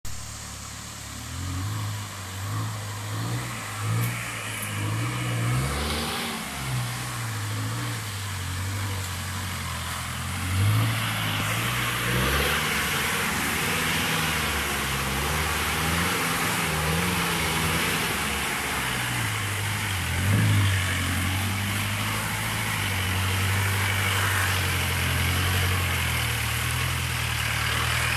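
Diesel engine of a Mahindra 4x4 pickup working through deep mud, its low pitch rising and falling repeatedly as the throttle is worked, with a few louder revs. It becomes louder and steadier near the end as the vehicle comes close.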